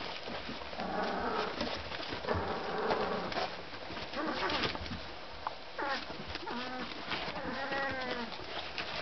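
Young Magyar Vizsla puppies calling as they wrestle: buzzy grumbling calls in the first few seconds, then a run of short whines that rise and fall in pitch from about six seconds in.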